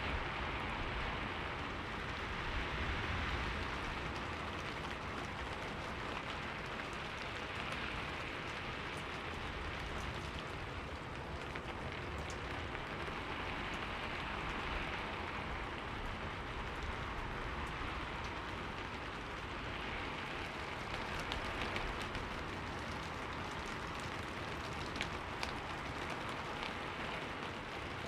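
Steady rain falling on a surface, an even hiss with scattered small drop ticks throughout.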